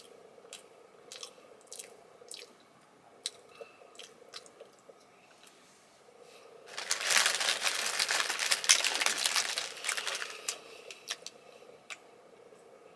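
Plastic wrapper of a Submarinos snack cake crinkling loudly for about four seconds in the middle, with soft scattered mouth and handling clicks before and after.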